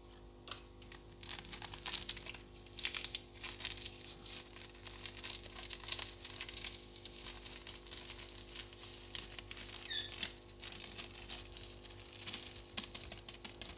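Thin plastic bag crinkling and crackling irregularly as it is squeezed, shaken and crumpled to empty citric acid powder out of it.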